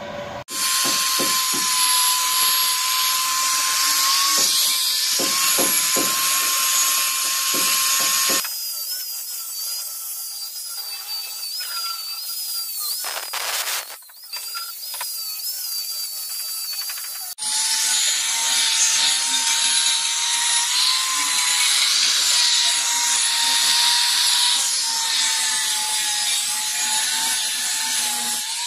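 Electric angle grinder with an abrasive disc grinding rust off the square iron bars of a window grill, down to bare metal; the motor whines steadily under a harsh grinding hiss. The sound changes abruptly twice, the middle stretch quieter with a higher whine.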